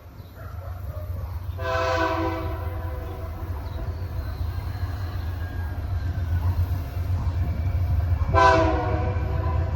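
GE diesel-electric freight locomotive approaching, its engine rumble growing louder, sounding its multi-chime air horn twice: a blast of about a second near the start and a shorter one about eight seconds in.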